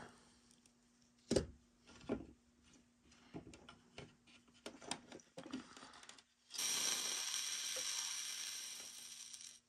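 A few light clicks and knocks from the plastic battery tray and wire being handled, one sharper click about a second in. Then, about six and a half seconds in, a steady hiss of solder flux sizzling under a hot soldering iron as the wire is soldered to a battery contact. The hiss fades slightly over about three seconds and stops suddenly.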